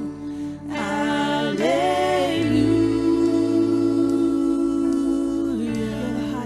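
Live worship music: women's voices singing together over a band with electric guitar, holding one long note from about two seconds in until near the end.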